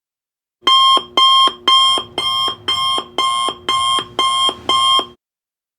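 Electronic timer alarm sounding nine short, identical beeping tones, about two a second, signalling that the 17-minute countdown has run out.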